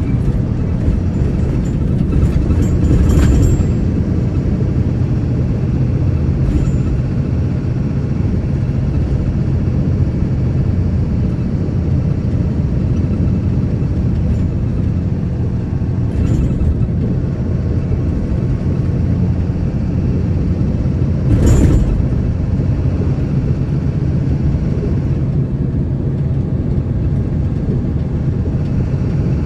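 A road vehicle driving at a steady speed: a steady low engine hum under road noise. Brief knocks or rattles come about 3 seconds in and, loudest, about 21 seconds in.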